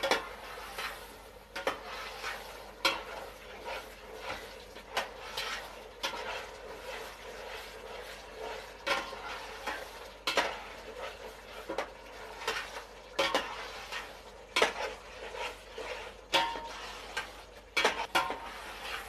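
Metal spoon stirring chicken pieces in a steel pot of hot oil and gravy: irregular scrapes and clinks of spoon against the pot, over a steady sizzle.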